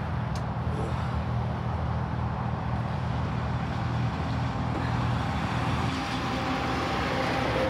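Road traffic: vehicles passing, with a steady low engine hum under a wash of road noise. A fainter engine tone joins about six seconds in.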